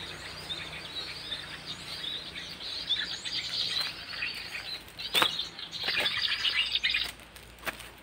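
Small birds chirping and twittering in a dense, rapid stream, stopping abruptly about seven seconds in, with a few sharp knocks, the loudest about five seconds in.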